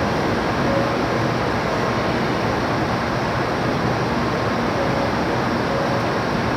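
Steady rushing hum of a JR Kyushu shinkansen train's air conditioning and ventilation while it stands at the station before departure.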